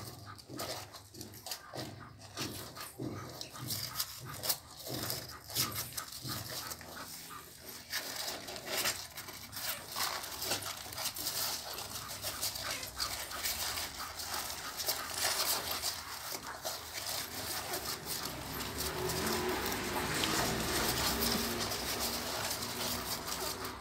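Newborn pitbull puppies nursing, making wet suckling clicks and small grunts, with faint whimpering squeaks near the end.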